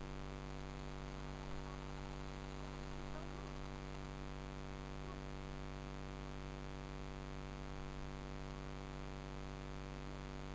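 Steady electrical hum with many overtones, an unchanging buzz laid over the recording, with a few faint, brief sounds about three and five seconds in.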